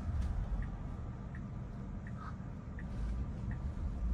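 Tesla Model Y turn-signal indicator ticking steadily, about one tick every three-quarters of a second, over a low cabin rumble.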